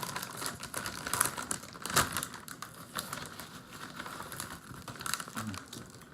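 Crinkling of a potato chip bag and crunching of Lay's wavy potato chips, a dense crackle with a few sharper cracks about one and two seconds in.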